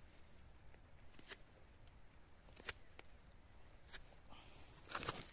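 Near quiet, with a few faint, short ticks and scrapes spaced a second or so apart: a grafting knife scoring the bark of a young wild mulberry trunk.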